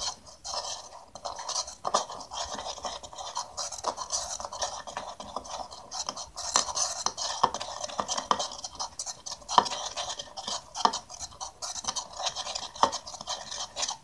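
Metal teaspoon stirring clear glue and borax solution in a bowl to make slime, scraping steadily around the inside of the bowl, with several sharp clinks of the spoon against the bowl.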